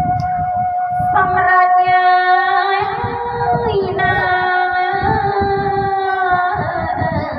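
Khmer traditional wedding music: a woman sings long, held, slightly wavering notes into a microphone, with a bowed Khmer two-string fiddle (tro) accompanying her. The notes step to new pitches a few times.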